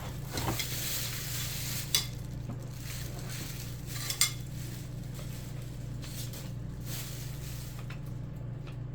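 Rustling and handling noises as the parts and packaging of a toy paintball gun are handled, with a sharp click about two seconds in and another about four seconds in, over a steady low hum.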